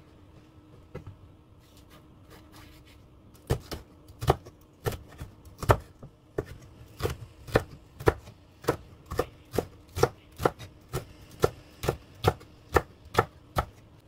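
Chef's knife chopping chili peppers on a wooden cutting board. After a few light taps, steady chopping strikes start a few seconds in and run at about two a second.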